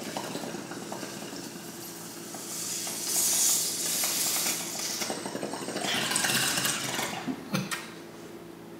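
Water bubbling through a tall glass bong's stacked percolators as a long hit is drawn: a fast, dense gurgling rattle that grows louder about three seconds in and stops about seven and a half seconds in.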